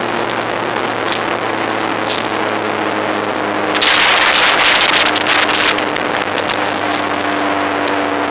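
Sport motorcycle engine running at highway speed under a steady rush of wind on the microphone. About four seconds in, the wind noise swells sharply for about two seconds and then settles back.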